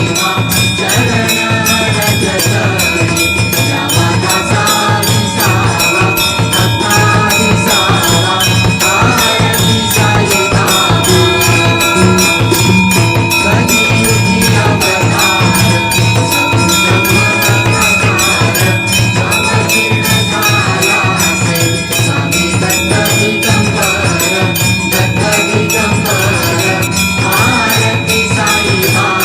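Devotional aarti music with a hand bell rung rapidly and steadily throughout, its ringing tone held over the music.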